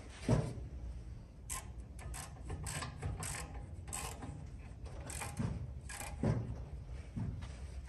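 Metal clicking and clunking from an aircraft-fuselage rotisserie built on modified Harbor Freight engine stands as the fuselage is turned on it by hand: irregular sharp clicks with a few heavier thumps, the loudest one just after the start.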